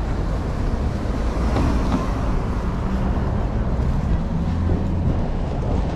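Street traffic: a steady low rumble of vehicle engines running.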